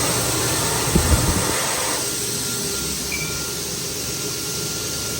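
Hand dryer built into a sensor washbasin tap, blowing a strong steady rush of air over hands and cutting off abruptly at the end. There are a few low knocks about a second in.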